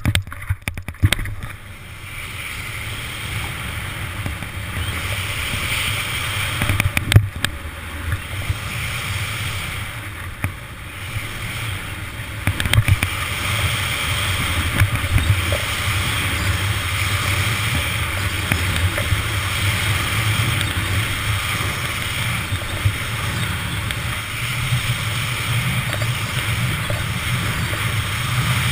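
Snowboard riding fast on a groomed course: the board's edge hissing and scraping over packed snow, with wind buffeting the helmet-camera microphone, building as speed picks up. A few sharp knocks near the start and scattered thumps over rollers and landings.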